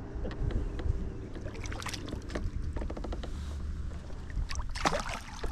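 A small bass thrashing and splashing at the water's surface beside the boat as it is reeled in. There are a few sharp splashes and clicks, the loudest near the end, over a steady low wind rumble on the microphone.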